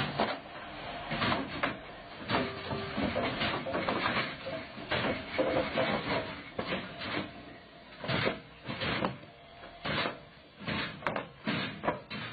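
Concrete pipe sections tumbling off a flatbed trailer, a long string of irregular heavy thuds and knocks as they drop onto the ground and strike one another.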